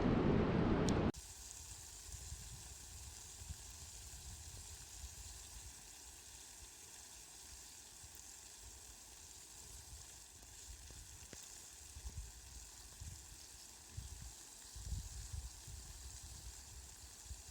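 Heavy rain stops abruptly about a second in and gives way to light rain: a faint, even hiss with scattered soft ticks. Low rumbles come and go near the end.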